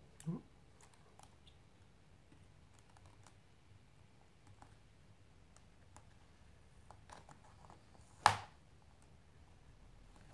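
Light clicks and taps as a raised black letter is handled and pressed onto a number plate in a lettering jig, with one sharp click a little over eight seconds in.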